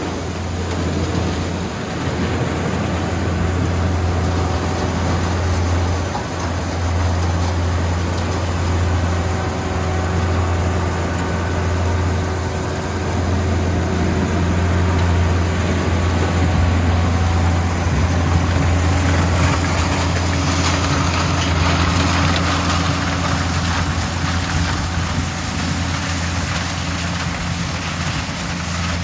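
Yanmar corn harvester running steadily, its engine a constant low drone under the clatter and rush of the machinery.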